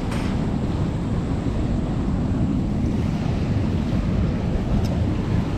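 Steady rushing of floodwater pouring through a spillway, with wind buffeting the microphone.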